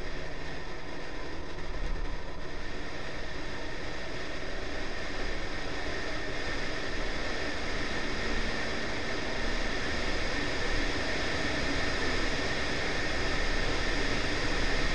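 Steady rush of wind and road noise on a camera mounted on the outside of a Honda Civic with a B18C4 1.8 VTi engine driving fast on a race track, the car's engine running underneath. The sound grows a little louder near the end.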